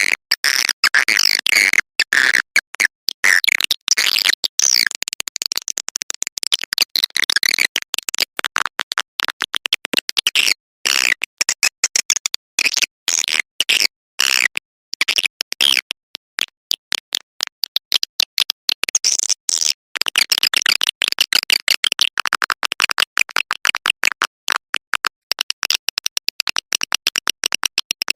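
Swiftlet lure call: a dense, rapid chattering of high swiftlet chirps and twitters, broken by many very short gaps. It is the kind of recording played in a swiftlet house to draw swiftlets in to roost and nest.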